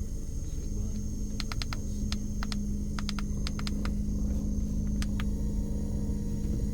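Electric fan running with a steady hum, its airflow rumbling low on the microphone. Irregular sharp clicks, several in quick runs of three or four, sound over it.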